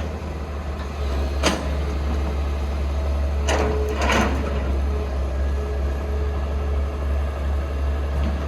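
Heavy diesel machinery engine running with a steady deep drone, with a sharp metallic clank about a second and a half in and two more close together around three and a half and four seconds in.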